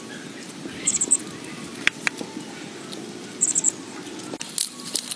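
Two short runs of quick, high-pitched chirps, about four notes each, about a second in and again at about three and a half seconds. A couple of sharp knocks fall between them, over a steady low hum.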